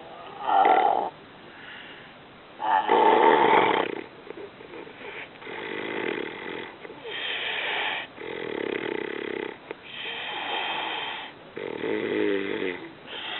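A man snoring heavily: two loud snores in the first four seconds, then a steady run of quieter snoring breaths, each about a second long.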